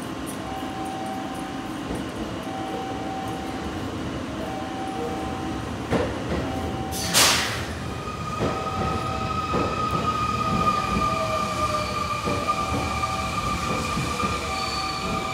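Train moving at the station platform. A repeating tone sounds about once a second, then a short loud hiss about seven seconds in, followed by a steady high whine and squeal with some knocks from the train.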